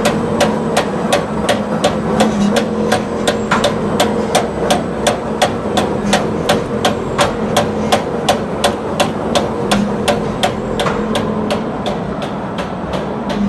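Glass mosaic machine running, with sharp clacks in an even rhythm of about three a second over a steady motor hum.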